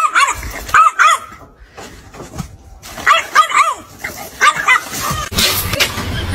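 A puppy yapping in short, high-pitched yips that come in small clusters with pauses between. Near the end the yapping gives way to a steady noisy hiss.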